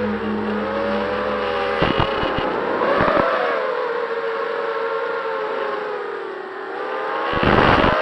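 ZMR250 racing quadcopter's Emax brushless motors and propellers whining, the pitch sliding up and down as the throttle changes, with a few brief bursts of rushing noise.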